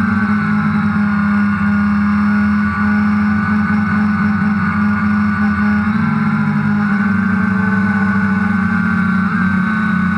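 DJI Phantom quadcopter's motors and propellers running in flight: a steady buzzing hum with a higher whine from several rotors that drifts slightly up and down in pitch as the motors adjust.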